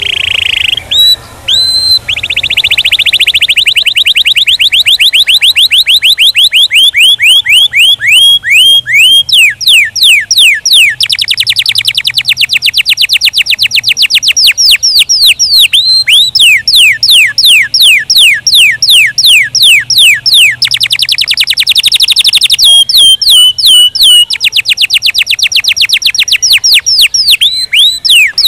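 Domestic canary singing a long, loud song of rapid trills: rolls of very fast notes alternating with runs of slower sweeping notes, the tempo changing every few seconds.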